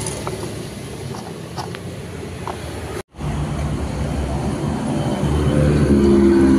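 Road traffic noise, cut off abruptly about three seconds in. It resumes, and a passing vehicle's engine grows steadily louder toward the end.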